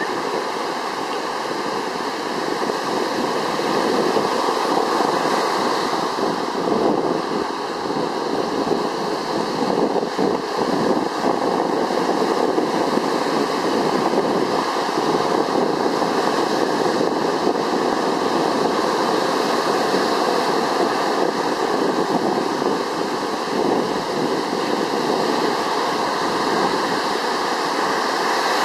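Steady rushing noise of wind and water, with wind on the microphone.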